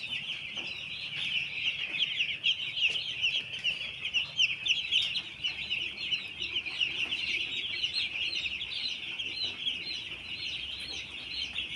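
A flock of young broiler chicks peeping continuously, many high chirps overlapping into a dense chorus.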